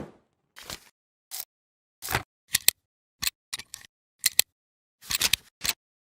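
Camera shutter and film-advance clicks as a sound effect: about eight short, sharp mechanical clicks, some in quick doubles, unevenly spaced with dead silence between them.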